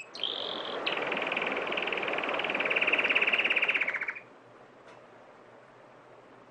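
Bird-call sound effect: a short rising chirp, then a long rapid trill over a rushing hiss. The trill steps down in pitch about a second in, grows a little louder, and stops abruptly after about four seconds.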